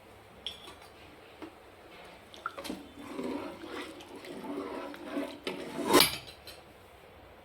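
Cooking sounds from a pot: liquid sloshing and pouring with utensil clinks, ending in one loud metallic clank about six seconds in.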